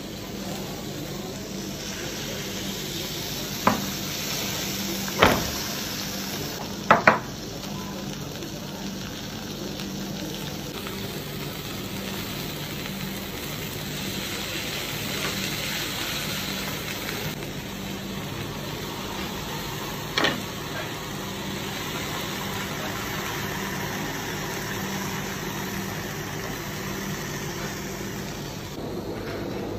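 Hot food sizzling steadily, with sharp clinks and knocks of a knife and fork against a cast-iron grill pan: a few between about 4 and 7 seconds in, two in quick succession at about 7 seconds, and one more about 20 seconds in.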